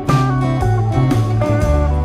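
Background music led by guitar, with a bass line and a steady beat.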